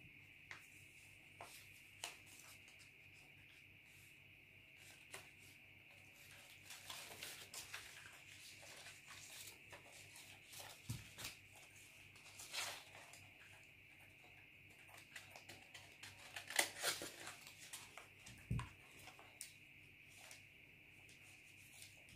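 Faint rustling and crinkling of paper pattern pieces as they are handled and folded, coming in scattered short rustles with a few sharper clicks, the loudest about two thirds of the way through; a steady faint high hiss lies underneath.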